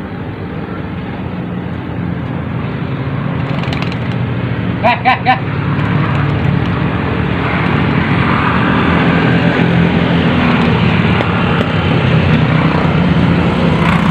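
Motor vehicle engine running steadily, growing gradually louder. About five seconds in come three short, quick high-pitched notes.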